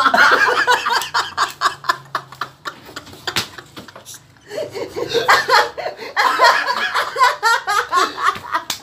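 A group of people laughing hard in rapid bursts, dying down briefly around the middle before breaking out again.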